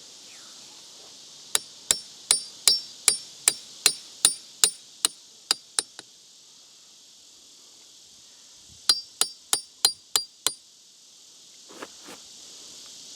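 Metal striking metal in two runs of quick, even blows, about a dozen and then about half a dozen, each with a bright ringing; a couple of duller knocks near the end. Insects buzz steadily behind.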